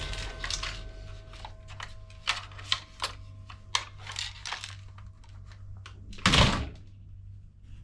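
Plastic toy rifle being handled: a string of light clicks and knocks, then a louder clatter about six seconds in as it is laid down on a pile of plastic toy guns.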